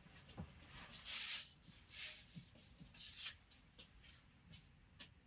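Faint rustling: three short hissy swishes about a second apart, with a few light taps and clicks between them.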